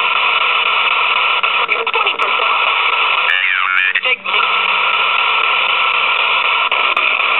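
PSB7 spirit box scanning radio stations: a steady hiss of radio static with short broken snatches of voice chopping through it. The clearest snatch comes a little over three seconds in, followed by a brief drop-out about four seconds in.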